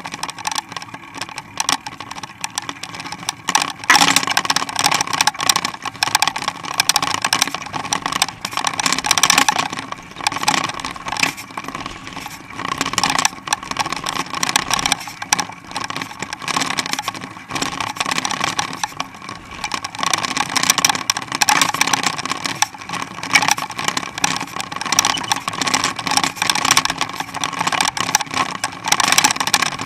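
Mountain bike rolling along pavement: steady tyre and wind noise with constant rattling and clinking from the bike, its springer dog attachment and the harness clips.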